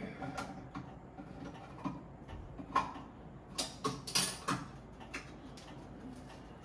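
Light clicks and knocks of things being handled on a kitchen counter, scattered, with a quick run of sharper knocks about three and a half to four and a half seconds in.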